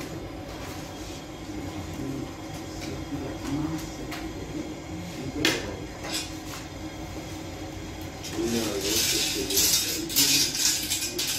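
Long iron oven rod scraping and clattering inside a sangak bread oven, loudest from about eight seconds in. Before that there is low bakery room noise with an occasional single knock.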